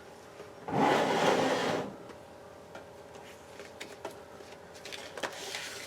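Rummaging and handling of a card: a rustling scrape lasting about a second near the start, then light clicks and rustles.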